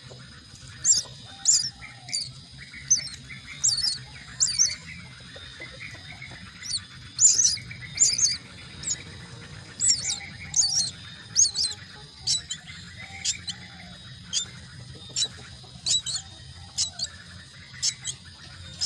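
Myna chicks calling: a long run of short, sharp, high-pitched chirps, one or two a second at uneven intervals, over a faint steady low hum.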